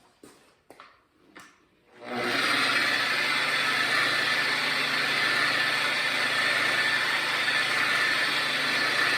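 A few light clicks, then about two seconds in an electric car polisher starts and runs steadily on the paint at one constant speed, a whir over a low hum.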